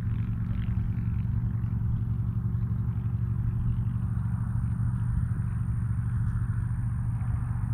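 A steady low rumble with a faint hum in it, unchanging throughout.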